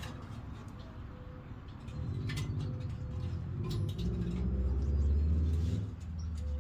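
Light clicks and rustles of electrical wire being handled and fed through a truck's bed panel, under a low rumble that swells through the second half and then drops away shortly before the end.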